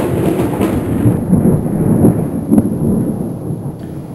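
Rolling thunder: a low rumble that slowly dies away.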